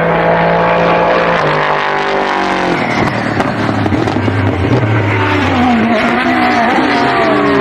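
GT race car engines at speed on a circuit: one car's engine note holds steady, then falls in pitch as it goes by, and from about three seconds in several more cars follow, their engine notes rising and falling over one another.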